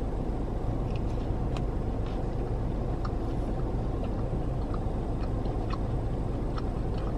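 Chewing of a rolled flour tortilla dipped in salsa, faint soft mouth clicks scattered through, over the steady low hum of a car's engine and air conditioning inside the cabin.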